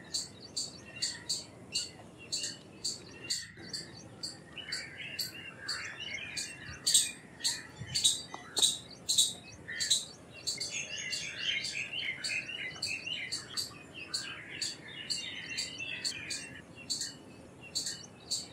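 Indian palm squirrel calling: sharp, high, bird-like chirps repeated about three times a second, with a softer twittering chatter under them in two stretches, one about a quarter of the way in and a longer one past the middle.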